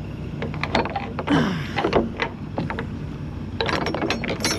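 Semi-trailer swing door and its lock hardware being handled: scattered metal clanks and clicks, a short creaking glide about a second and a half in, and a dense run of clicks near the end, over a low steady hum.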